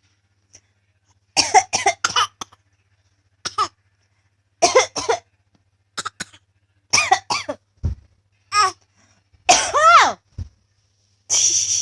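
Repeated coughing in short bouts of one to three coughs, some of them voiced and high-pitched, ending in a longer breathy rasp near the end.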